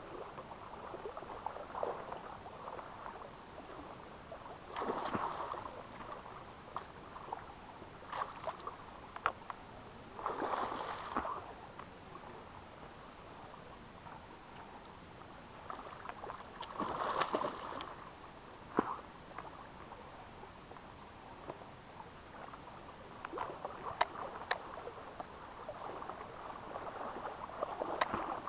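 River water running, with irregular splashes and sloshing every few seconds and a few sharp clicks.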